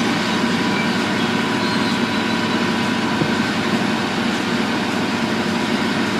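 A heavy machine's engine running steadily and evenly, with no change in load.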